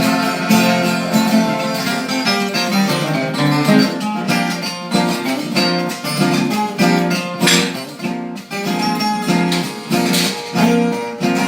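Instrumental break of a Brazilian moda de viola song: a viola caipira and guitar plucking a brisk, rhythmic melody without singing.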